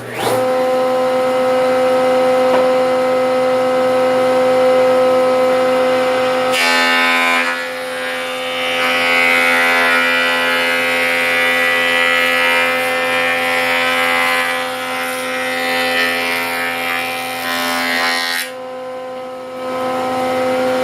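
Electric wood planer switched on and running with a steady motor whine. From about six seconds in to about eighteen seconds in a board goes through and the cutters take wood off, adding a louder rushing noise, after which the motor runs free again.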